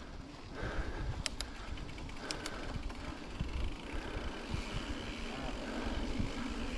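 Mountain bike riding over a rough dirt trail: a steady rumble of tyres and frame with irregular knocks and rattles, and a couple of quick runs of sharp clicks.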